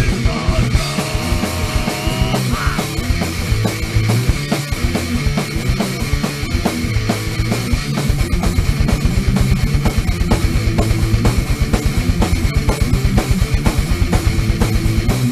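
A punk-metal rock band recording with distorted electric guitar, bass and drum kit, played loud and fast. The drums keep up a rapid, even pounding of strokes.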